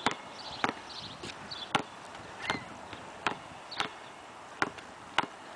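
Basketball being dribbled on an asphalt court: a sharp bounce about every two-thirds of a second, nine or so in all.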